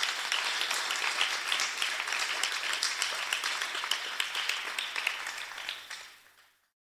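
Audience applauding, many hands clapping at the end of a talk, the applause fading away about six seconds in.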